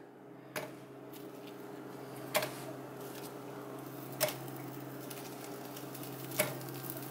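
Fried, breaded fish pieces being dropped one at a time into an electric skillet, each landing with a light tap, four taps in all. A steady low hum runs underneath.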